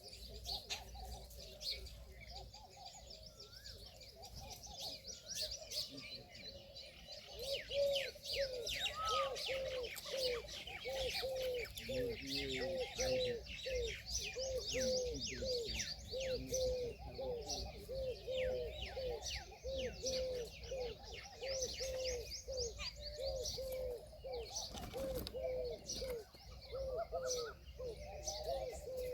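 Indian peahen calling: a long, even run of short low notes about twice a second, starting about seven seconds in, over the high-pitched chirping of small birds.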